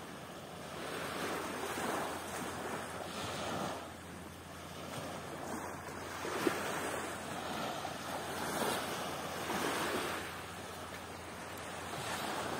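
Rushing water with wind on the microphone, a steady noise that swells and eases every second or two. A single short tap about six and a half seconds in.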